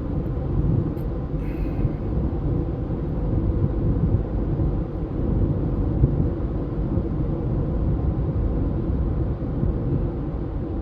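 Steady in-cabin road and engine rumble from a 2017 Honda CR-V with the 1.5L turbo engine, driving along at road speed.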